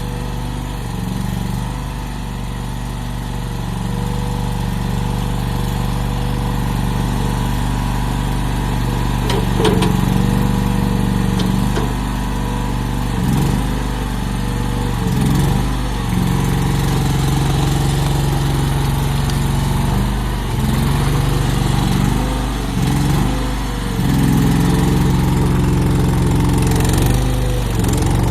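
Agrotk LRT23 tracked mini skid steer's 23 hp engine running steadily, its pitch dipping briefly and recovering several times in the second half.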